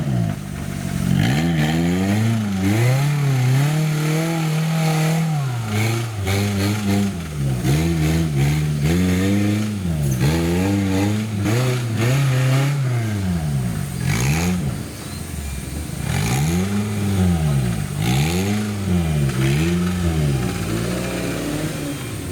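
Engine of a Suzuki Jimny-based off-road trial machine revving up and down over and over in short throttle blips, with a few sharp knocks among them.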